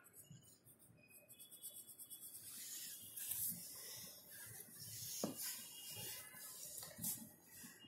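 Graphite pencil scratching and shading on notebook paper. It grows louder after about two seconds, with a light tap about five seconds in.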